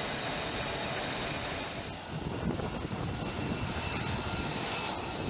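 Jet aircraft engines running: a steady rush of noise with a thin, high, steady whine.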